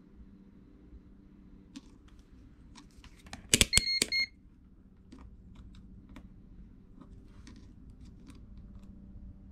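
Vici VC837 digital multimeter's rotary dial clicked round, followed by a short high beep from the meter lasting about half a second, about four seconds in. Light clicks and taps of test probes on a breadboard come before and after.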